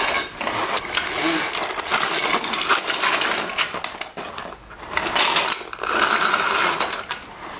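Plastic Lego bricks clattering and clicking against each other and against the plastic bucket of a Bruder toy excavator as it scoops and pushes them across a play mat.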